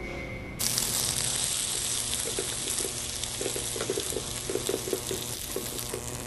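A loud, steady hiss cuts in abruptly about half a second in, as the music stops, with faint irregular crackling underneath: a sound effect for the execution apparatus being switched on.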